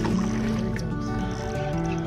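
Background music: sustained chords of held notes that shift every half second or so.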